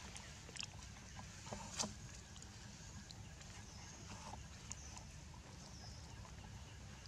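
Faint outdoor background with a steady low rumble, broken by a few soft crackles of dry leaves being handled, the clearest a little under two seconds in.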